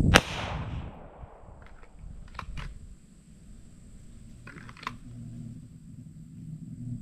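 A single loud gunshot right at the start, ringing out for about a second, followed by a few faint sharp clicks.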